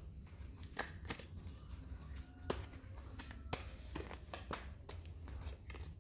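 Tarot cards being handled on a table: faint scattered taps and rustles, a dozen or so small clicks spread over several seconds.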